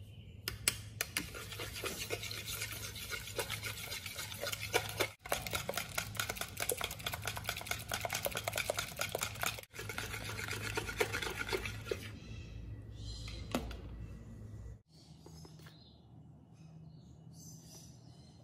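A wire balloon whisk beating eggs and sugar in a mixing bowl, with fast steady clicks and scrapes of the wires against the bowl through the liquid, as the mix is beaten until the sugar dissolves. The whisking eases off about 12 seconds in and stops around 15 seconds in.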